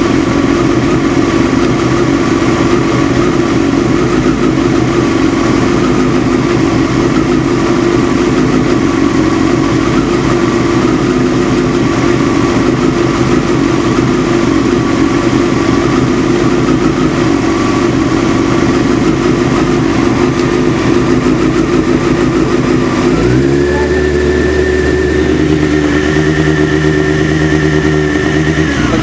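Motorcycle engine idling steadily while warmed to about 50 degrees; the engine knock it has when cold is no longer heard. About 23 seconds in the engine speed rises and holds higher until near the end.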